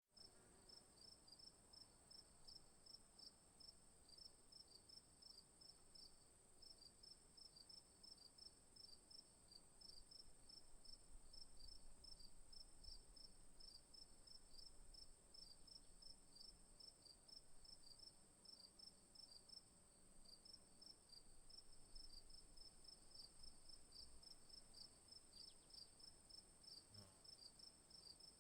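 Faint insect chorus, crickets or similar: a steady high-pitched buzz with a regular pulsed chirping a little lower in pitch, several chirps a second.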